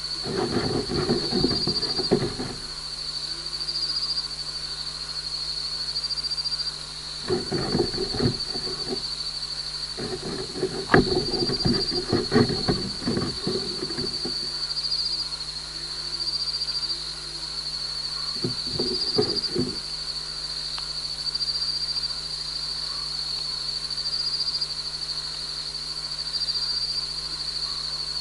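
A gecko's feet scratching and scrambling on the mesh netting right over the microphone, in four bouts of close, scratchy rustling, the longest lasting several seconds. Behind it, insects chirp steadily in a high, pulsing drone.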